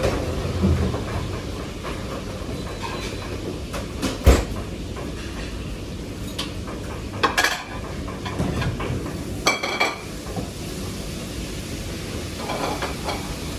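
Commercial kitchen at work: a steady low background noise, with metal pans and utensils clanking now and then. The sharpest knock comes about four seconds in, and a clank with a brief ring follows about nine and a half seconds in.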